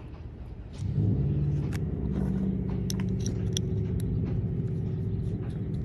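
A motor vehicle engine running at a steady speed, coming in suddenly about a second in, with a few light clicks from parts being handled.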